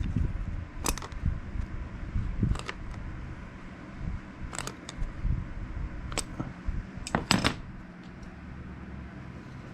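Sharp, irregular clicks and taps of the mounting nuts being tightened onto 12-volt power sockets in a mounting plate, about six in all, two close together near the end, over a low steady hum.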